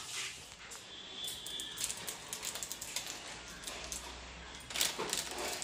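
Quiet kitchen handling sounds: scattered light clicks and taps, and a plastic instant-noodle packet crinkling near the end.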